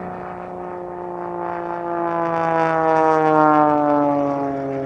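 Pitts Special 'Super Stinker' aerobatic plane making a low flyby: the engine and propeller drone swells to its loudest about three and a half seconds in, its pitch sliding steadily down as the plane passes.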